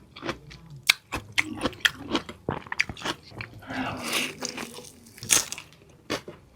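Close-miked eating of crunchy food: a person bites and chews, making irregular sharp crunches with softer chewing between them.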